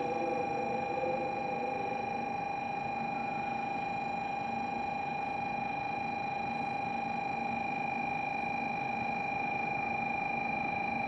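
Steady electrical whine made of several fixed tones, one high and one mid-pitched, unchanging throughout, over a light hum of platform ambience, with faint voices in the first second or so.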